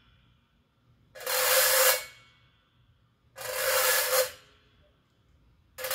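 Metal reco-reco: a thin metal rod scraped along the steel springs stretched over its metal body, giving a hissing rasp. Three long strokes of about a second each, roughly two and a half seconds apart, the last starting near the end.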